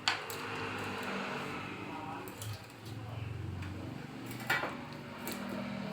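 A few sharp clicks and knocks from something being handled, one at the very start and one about four and a half seconds in, over a low murmur.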